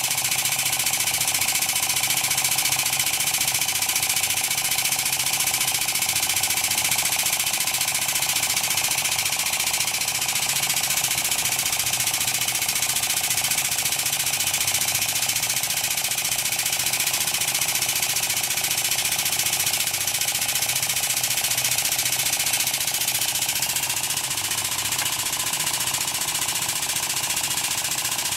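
Pneumatic equipment running steadily: a fast, even chatter under a strong hiss.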